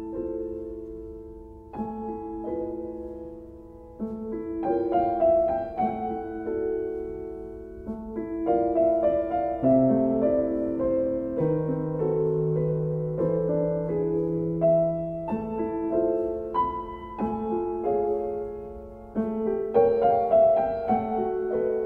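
Slow solo piano music: chords and melody notes struck and left to ring, a new chord every second or two.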